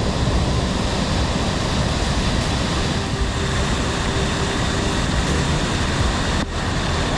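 Steady rush of a waterfall pouring into the sea, briefly dipping near the end.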